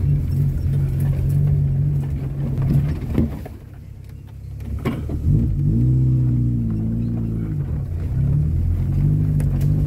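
A 4x4's engine running as it drives, easing off to a lull about three and a half seconds in, with a couple of sharp knocks, then revving up and down again.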